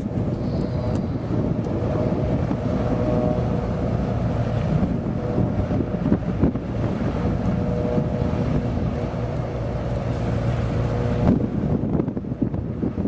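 Commercial fishing boat's engine running steadily as the boat moves by under way, with wind buffeting the microphone. The higher hiss drops off near the end.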